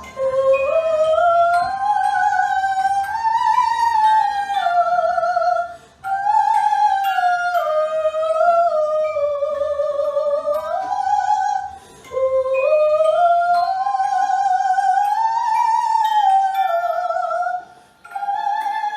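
Eerie wordless melody with heavy vibrato, gliding up and down in long phrases of about six seconds, each breaking off briefly before the next, over a faint low accompaniment.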